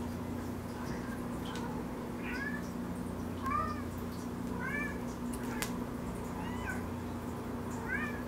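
A domestic cat giving short meows that rise and fall, about five of them spread over the seconds, with one sharp knock a little past halfway and a steady low hum underneath.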